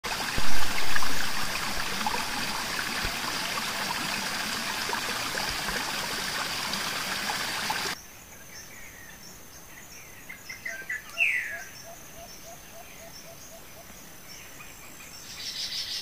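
Riverside nature ambience in two parts. First there is a dense rushing hiss of river water with a steady high insect buzz, opened by two loud bumps. After a sudden cut about halfway, it turns to a quieter scene: a thin high insect whine, and birds calling with a short run of low chirps and a few quick rising and falling whistles.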